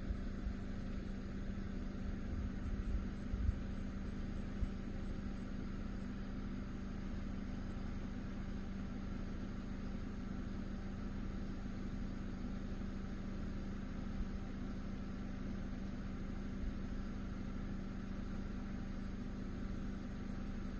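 Night insects chirping in a steady, evenly pulsing rhythm over a constant low hum, with a few low thumps in the first few seconds.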